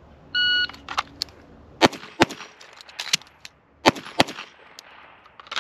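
Shot-timer start beep, then a pistol fired in two double taps: two shots about half a second apart, a pause of about a second and a half for a magazine reload, then two more quick shots. The last shot comes about 3.9 s after the beep, the 3.87 s run time read off the timer.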